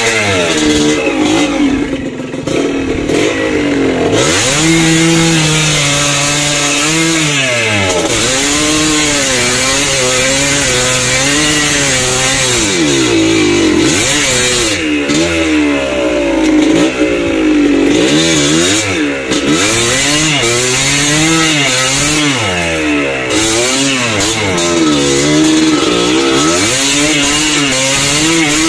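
Motorcycle engine revving up and down over and over, its pitch rising and falling every second or two as the throttle is worked.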